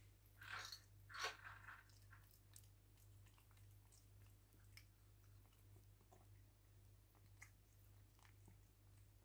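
Cats crunching and chewing cube-shaped cat food, faint: two louder crunches about half a second and a second and a half in, then small scattered chewing clicks. A steady low hum runs underneath.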